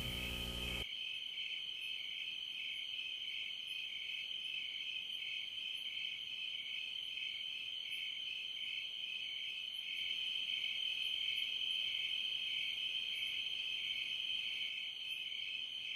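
A chorus of insects, likely crickets, chirring as a steady high-pitched pulsing trill, slightly louder for a few seconds in the later part.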